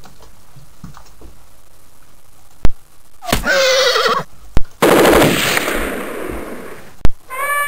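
Sound-effect clips played one after another, each started by a sharp click. About three seconds in comes a short pitched cry. It is followed by a longer, louder, harsh sound with a pitched edge that fades away. Just before the end another pitched sound begins.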